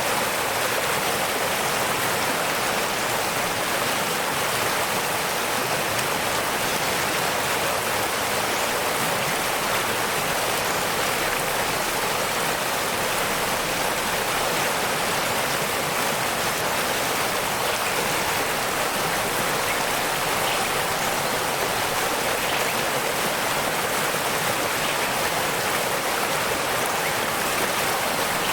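Waterfall: water falling and splashing in a steady, unchanging rush, more hiss than rumble.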